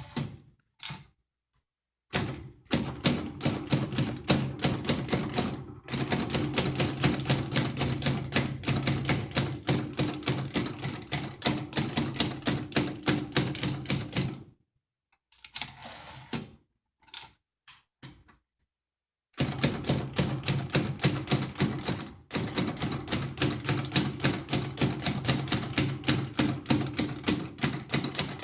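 1946 Remington Noiseless Model Seven typewriter being typed on: long runs of rapid, even keystrokes, broken by a few short pauses. Its keys give muted clacks rather than sharp strikes.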